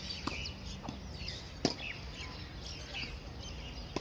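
Tennis ball being struck and bouncing during a rally: a few sharp knocks, the loudest about a second and a half in. Small birds chirp throughout.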